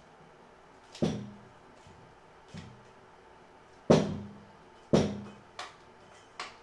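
A series of six sharp knocks and clunks, three loud ones about one, four and five seconds in and fainter ones between, each dying away quickly.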